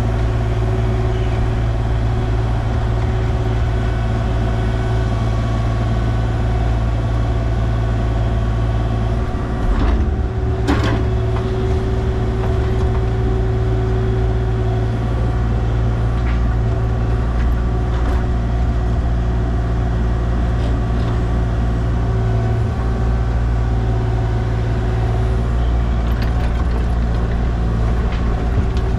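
Engine of heavy equipment running steadily at a constant speed, with a couple of sharp knocks about ten seconds in.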